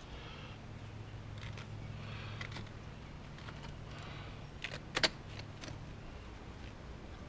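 Battery box being reassembled and strapped down: light scrapes, rattles and clicks, with one sharp click or knock about five seconds in, over a steady low hum.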